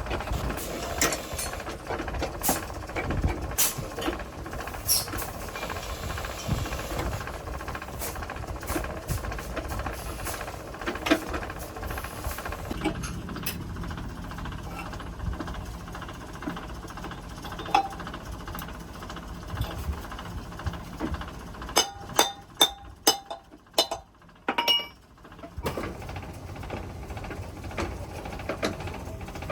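Irregular metal knocks and clicks of hand-tool work over a steady low rumble, with a quick run of sharp clicks about 22 seconds in.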